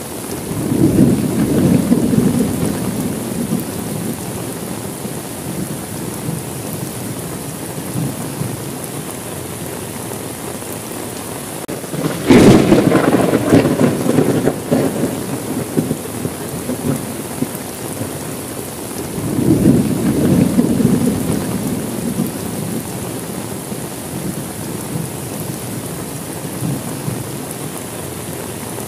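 Steady heavy rain during a thunderstorm, with three rolls of thunder. The first comes near the start. The second, about twelve seconds in, is the loudest: a sharp crack that rumbles on for a few seconds. The third comes about two-thirds of the way through.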